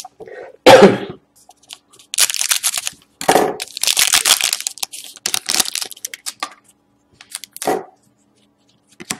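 Foil trading-card pack wrapper crinkling and being torn open by hand, in a run of crackling, rustling tears, with the loudest sharp crackle about a second in.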